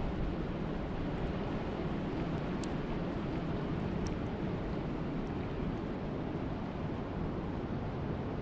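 Steady wind and rain: an even, low rushing noise with a few faint drop ticks scattered through it.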